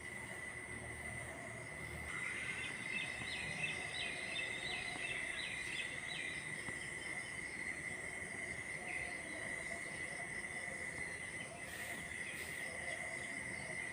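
Insects droning steadily at a high pitch, with birds calling over them; a quick run of short bird notes about two to six seconds in.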